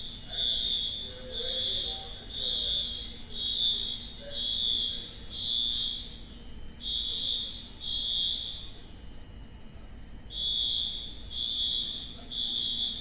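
Building fire alarm sounding in repeated high-pitched electronic beeps, about one a second. The beeping pauses briefly twice, the second time for about two seconds before it resumes.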